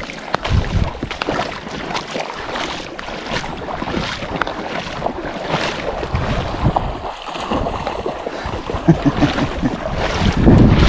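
River water splashing and sloshing with irregular crackles, under wind buffeting the microphone.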